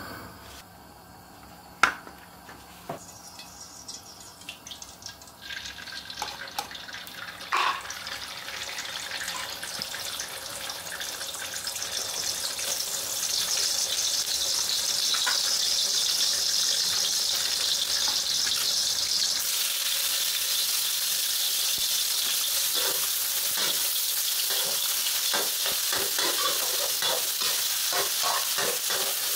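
Eggs and garlic frying in oil in an aluminium wok: a sizzle that builds up over the first dozen seconds and then runs loud and steady. A sharp click comes about two seconds in, and near the end a metal spatula scrapes repeatedly against the wok as chopped tomato is stirred in.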